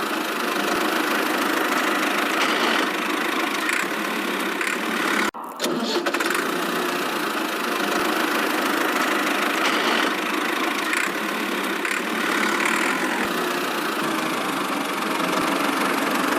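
Small motor running steadily with a hum that has no deep low end, as on a miniature tractor. It cuts out for an instant about five seconds in.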